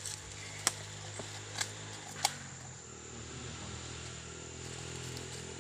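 Steady high-pitched insect trilling over a low steady hum, with three sharp clicks in the first couple of seconds.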